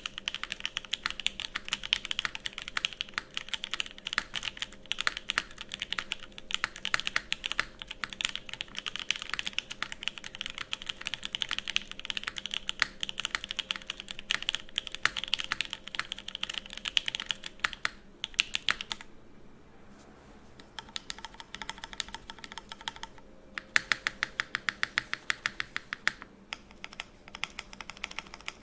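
Typing on a Charon mechanical keyboard with Banana Split linear switches on an FR4 plate, no foam: a fast, steady stream of keystroke clacks. The clacks pause briefly about two-thirds of the way through, then come as a quick run of rapid keystrokes followed by a few scattered presses.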